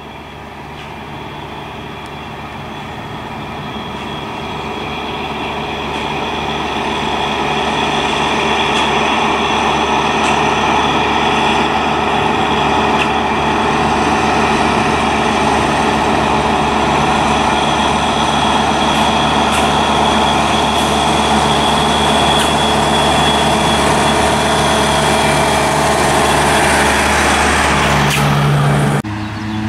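Zetor Crystal 10145 tractor's diesel engine running steadily under way on a road, growing louder over the first several seconds as the tractor approaches and passes.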